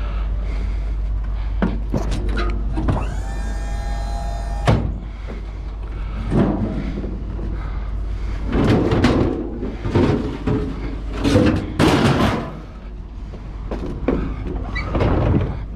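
Scrap being handled and loaded onto a truck: a drawn-out metallic squeal about three seconds in, then a run of clanks, knocks and thuds, over a steady low rumble.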